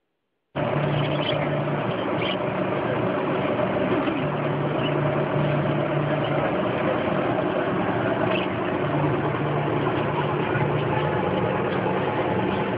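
Steady machine-like hum and background noise that starts about half a second in after a brief silence, with a low drone that comes and goes and a few faint clicks.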